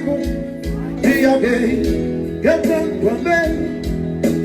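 Live seresta ballad played on an electronic keyboard, an instrumental passage between sung lines with a melody over a steady accompaniment.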